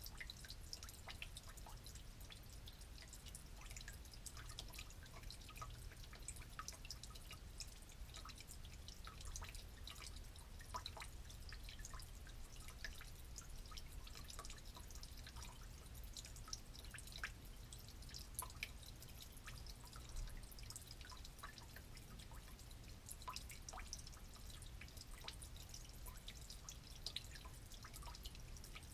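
Faint, irregular drips of old gasoline leaking from a broken valve on an old generator, falling several a second into a plastic drain pan that already holds fuel. A steady low rumble runs underneath.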